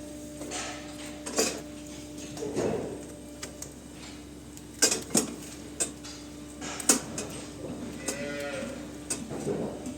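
A cow mooing briefly, with sharp metallic clanks and knocks scattered through, over a steady low hum.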